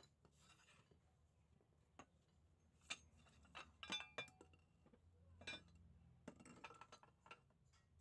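Faint metallic clinks and knocks from a dismantled Toyota Avanza steering rack and its loose parts being handled, with one ringing clink about four seconds in.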